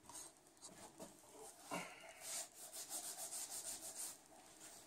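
Faint, quick rhythmic rubbing, about seven strokes a second for about two seconds, starting about two seconds in; a few soft knocks come before it.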